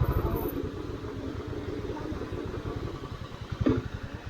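Motorcycle engine running with an even low pulsing beat, and a single short knock a little before the end.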